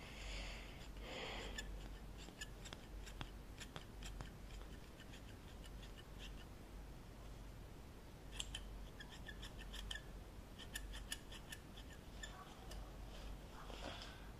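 Hair-cutting scissors snipping close to the microphone, trimming hair: scattered single clicks at first, then quick runs of snips about two thirds of the way through.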